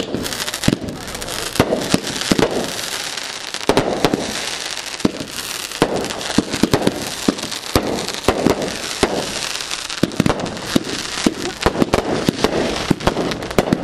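Aerial consumer fireworks going off in quick succession: sharp pops and a dense, irregular crackle over a steady fizzing hiss, with a louder report every second or so.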